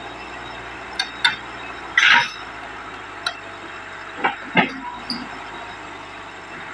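Hitachi crawler excavator's diesel engine running steadily as it climbs onto a lowboy trailer, with irregular metallic clanks and knocks from the steel tracks on the ramp and deck, and one louder, noisier clatter about two seconds in.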